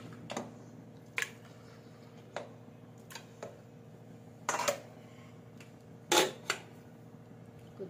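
A few sharp knocks and clinks of cookware as raw mutton pieces go into a pressure cooker pot and a steel plate of chopped vegetables is handled. The loudest clatters come about four and a half and six seconds in.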